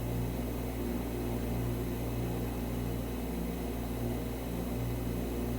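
Steady low electrical hum with a faint hiss, unchanging throughout: the room and recording equipment's background noise with no other event.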